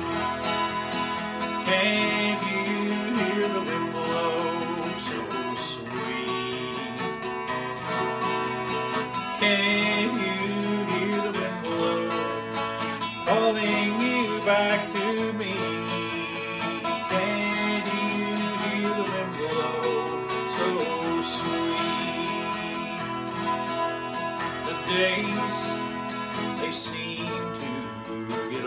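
Twelve-string acoustic guitar strummed in a steady rhythm, with a man singing a country song over it.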